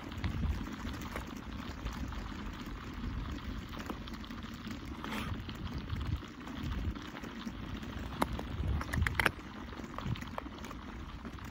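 Lake ice crackling and water gurgling where an ice lead is opening, over a low rumble. A cluster of sharp snaps comes about eight to nine seconds in.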